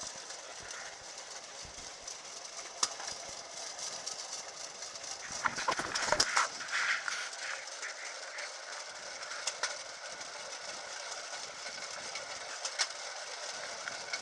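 Pedal-powered rail trolley (draisine) rolling along an old railway track: a steady rattle of steel wheels on the rails, with a few sharp clicks and a louder stretch about halfway.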